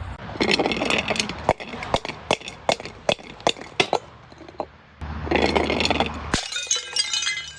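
Glass breaking under crushing: a stretch of crunching, then a run of separate sharp cracks, a short lull, more crunching, and a sudden shatter near the end with glass ringing.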